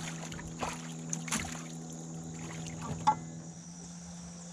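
Quiet sounds aboard a fishing boat: a steady low hum with a few short, light knocks and clicks of gear being handled, the sharpest one about three seconds in.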